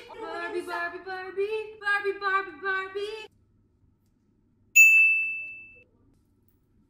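Female voices singing a short sung phrase for about three seconds. After a pause comes a single bright ding that rings and fades over about a second.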